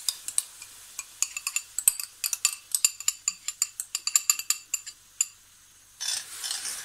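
Spoon scraping thick cooking cream out of a glass bowl into a stainless steel frying pan: a rapid run of light clinks and scrapes of spoon against glass, a brief lull, then one short scrape near the end.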